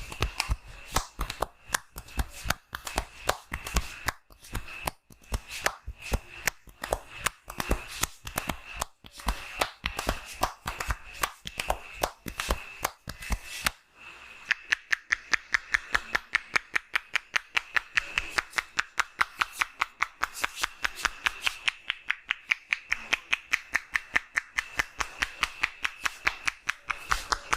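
Hands slapping and tapping on skin in a percussive massage: rapid irregular strokes at first, then, after a brief break about halfway, a fast even rhythm of about five slaps a second.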